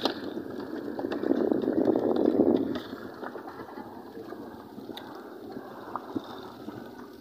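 Steady wash of sea water and wind around a small outrigger boat, louder for the first three seconds and then quieter, with a few light knocks.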